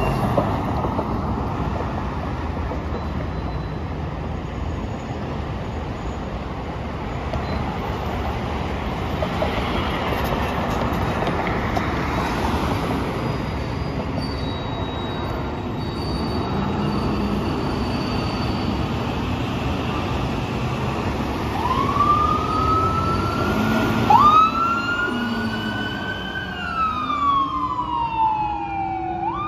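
Fire apparatus engines and road noise rumbling for most of the time, then emergency sirens start about three quarters of the way through: a wail rising and falling between roughly 700 Hz and 1.5 kHz, loudest near the end, with a second, lower siren winding up in the last few seconds.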